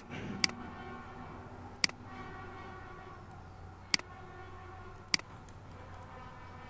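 Computer mouse button clicked four times, a sharp short click each time, over a faint steady hum.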